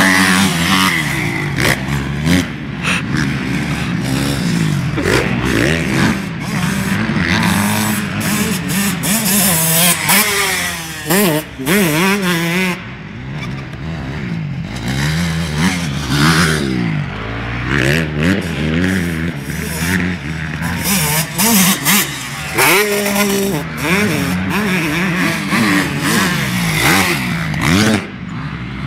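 Several motocross dirt bike engines revving hard and easing off as the bikes ride past, the pitch climbing and dropping with each throttle change and often overlapping.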